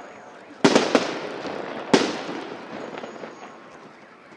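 Aerial fireworks salute: two shells burst loudly about a second and a half apart, each followed by a long echoing rumble that dies away.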